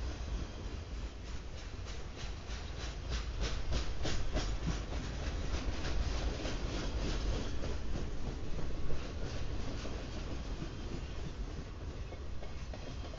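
Freight train flatcars rolling past with a steady low rumble. Runs of rapid clicking come from the wheels on the rails, and there is a brief louder moment about nine seconds in.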